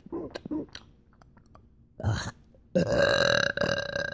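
A person burping on purpose: a short sound about two seconds in, then one long, loud, steady belch lasting over a second near the end.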